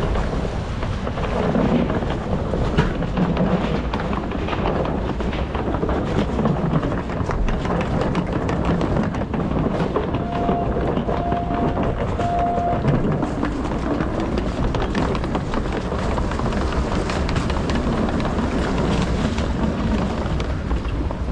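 A boat's engine rumbling steadily under way. About ten seconds in, three short beeps of the same pitch sound one after another.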